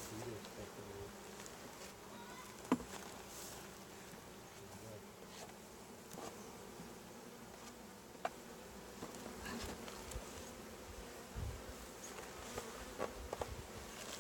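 Honeybees buzzing around an open hive during an inspection, a steady faint hum, with two sharp clicks about three and eight seconds in.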